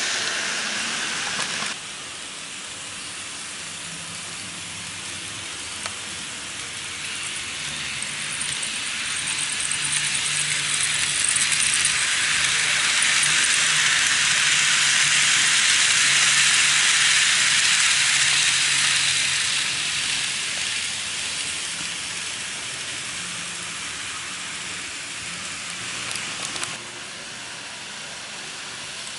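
N-gauge model train running on plastic sectional track: a metallic rattling hiss of small wheels on rail that swells as the Kintetsu 8600 series model passes close, then fades. The sound drops abruptly about two seconds in and changes again near the end.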